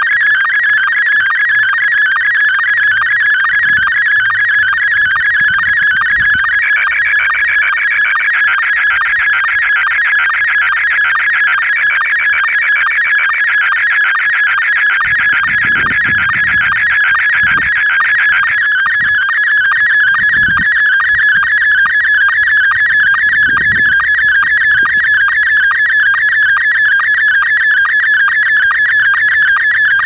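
Slow-scan television (SSTV) image signal coming out of a Yaesu VX-6 handheld radio's speaker: a loud, fast, steady warble of tones repeating line by line as a picture is sent. It is the test image transmitted by a home-made parrot simplex repeater on a DTMF command. The warble grows brighter for about twelve seconds in the middle as the picture content changes.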